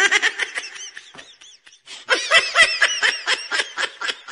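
High-pitched, squeaky laughter in quick pulses, several a second. It is louder at the start and again from about two seconds in, then tails off.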